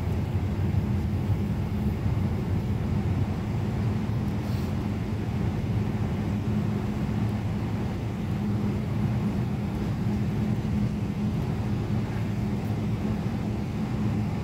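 Boeing 777 cabin noise while taxiing, heard from inside the cabin: the engines running at taxi power as a steady low hum with a few constant low tones under an even rumble.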